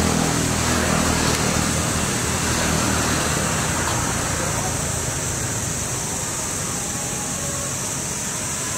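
A motor vehicle's engine hum, fading away over the first three seconds or so, under a steady high hiss of outdoor background noise.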